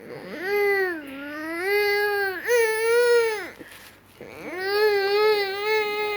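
Infant vocalizing in two long, wavering, cry-like calls, the second starting about four seconds in.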